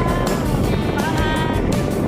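Background music: a melody of long held notes that bend slightly in pitch, over a dense backing with a steady beat.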